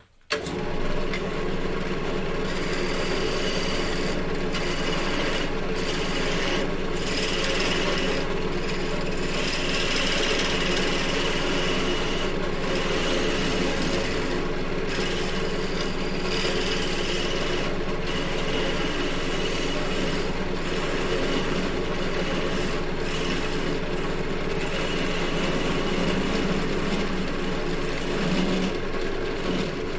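Wood lathe running steadily while a spinning wooden maul is hand-sanded: a hiss of sandpaper on the turning wood over the lathe motor's hum, the hiss breaking off briefly every second or few seconds.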